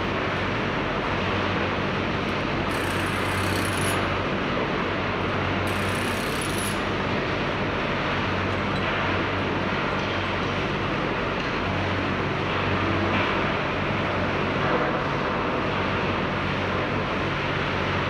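Sawmill machinery running steadily, a low hum under even mechanical noise, with two short high hisses about three and six seconds in.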